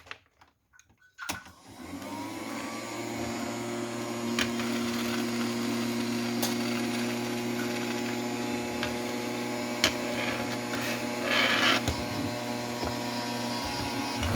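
A toy vacuum cleaner is switched on with a click just over a second in. Its small electric motor then runs with a steady hum as it sucks up polystyrene foam balls. A few sharp ticks and a brief rustle come later on.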